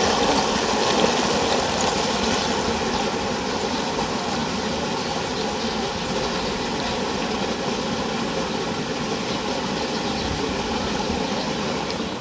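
Motorcycle engine running, loudest at the start and easing off over the first couple of seconds as the bike moves away, then holding at a steady lower level.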